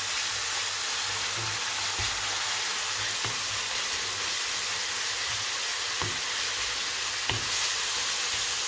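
Chopped bacon and onions sizzling steadily in oil in a skillet, with a wooden spoon stirring and knocking lightly against the pan a few times.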